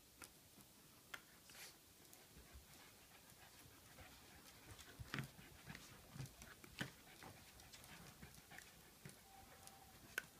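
Shiba Inu panting quietly and snapping at the air, with faint scattered clicks and taps, a few stronger ones past the middle.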